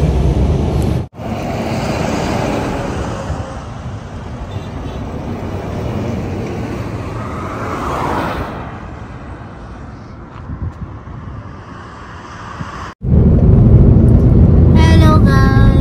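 Vehicle and road noise in short clips joined by abrupt cuts: a steady noisy rumble with a swell around eight seconds in, then a louder, deeper rumble after a cut near the end.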